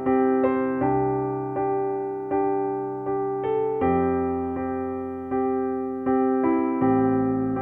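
Background music: a slow, soft electric piano playing sustained chords with a note struck about every three-quarters of a second, each fading before the next.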